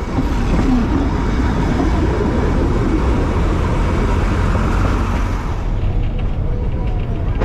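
Steady running rumble of the Darjeeling Himalayan Railway's narrow-gauge train rolling along the roadside, mixed with passing road traffic. The high hiss eases about six seconds in.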